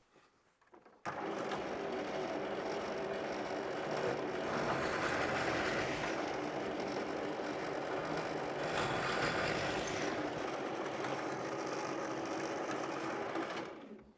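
Electric drill with an 8 mm bit running steadily while drilling two holes in a wooden block. The sound grows rougher twice as the bit cuts, and the drill stops shortly before the end.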